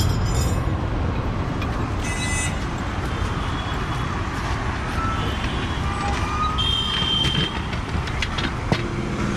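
Steady rumble of motor vehicles running, with a few short high beep-like tones and light clicks over it.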